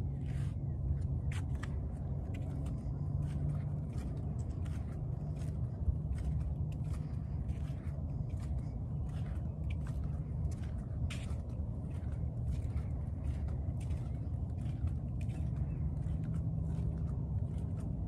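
Footsteps on the wooden planks of a boardwalk at a walking pace, about two a second, over a steady low rumble.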